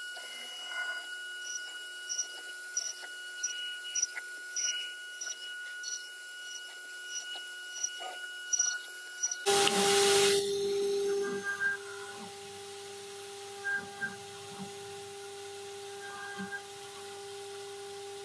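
CNC router's water-cooled 3 kW spindle running with a steady high whine. About halfway there is an abrupt change, and the whine drops to a lower steady pitch as the engraving bit mills into wood, with short bursts of cutting noise every couple of seconds.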